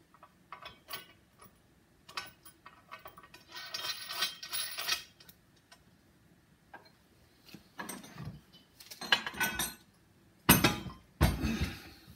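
Steel bolts and nuts clinking, clicking and scraping against the steel frame of a tabletop hydraulic press as they are fitted by hand. Near the end, two heavy thuds about a second apart as the steel frame is set down on the wooden workbench.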